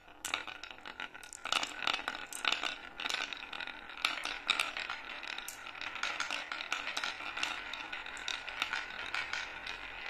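Many marbles rolling down the serpentine grooves of a wooden slope track: a continuous rolling rumble from the wood, with frequent sharp clacks as the marbles hit the groove walls and each other. The sound starts suddenly as the first marbles are let go and keeps up as more join the run.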